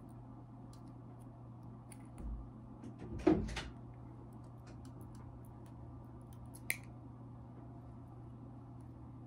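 Faint clicks and handling noises from a needle driver and forceps working suture on a silicone practice pad. A brief rustling knock comes about three seconds in and a single sharp click near seven seconds, over a steady low hum.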